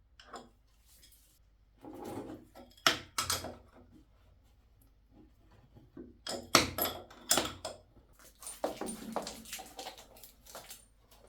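Irregular knocks, clicks and clatter of hand tools and threaded plumbing fittings being handled and worked, with a few sharper metallic knocks and some rustling between.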